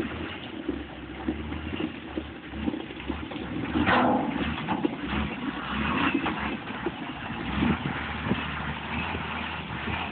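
Front-end loader engine running steadily at a distance, with a brief louder rush of noise about four seconds in.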